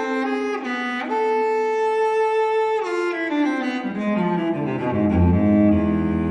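Solo cello playing a slow, sad classical melody: a long held note about a second in, then a line of notes stepping downward to a low sustained note near the end.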